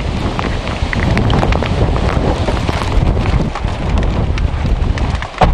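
Heavy wind buffeting the microphone with rain and scattered taps and knocks from the camera being handled. Near the end comes a sharp thump, a car door shutting, and the wind noise drops away suddenly.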